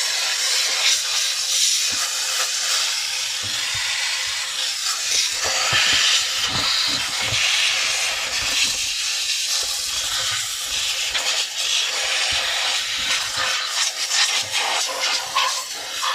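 Steam cleaner jetting steam: a loud, steady hiss with scattered low thumps.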